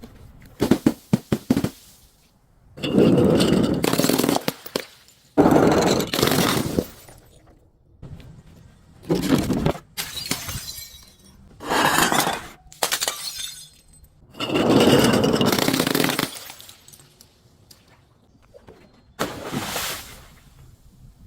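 Glass breaking and crunching as objects are crushed: a quick run of sharp cracks about a second in, then repeated longer crunching bursts of one to two seconds each, with short pauses between.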